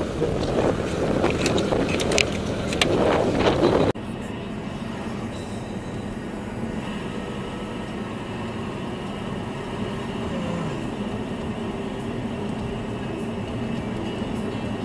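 Steady engine and road noise inside a moving car, picked up by a dashboard camera, with a faint steady hum. For the first four seconds it is preceded by a louder, noisier stretch with sharp clicks that cuts off abruptly.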